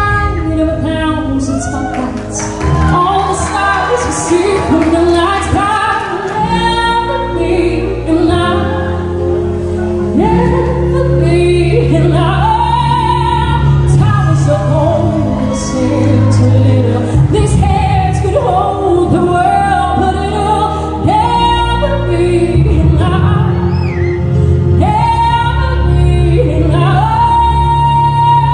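A woman singing live into a handheld microphone over a recorded backing track played through the PA, with long held notes; one is held near the end.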